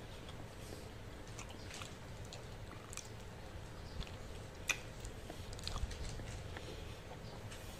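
Close-up chewing and mouth sounds of a person eating chicken feet cooked in soy sauce with rice, with scattered sharp wet clicks, the loudest a little under five seconds in.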